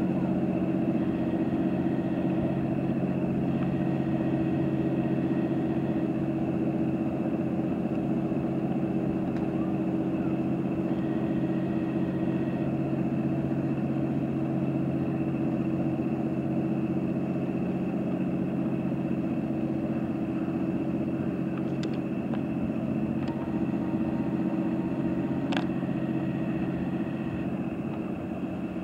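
Steady drone of a ship's diesel engine running at constant speed, one unchanging low pitch, with a few faint clicks in the last third.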